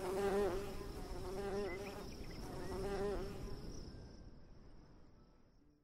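Bees buzzing: a droning buzz that dips and wavers in pitch about three times, then fades out over the last couple of seconds.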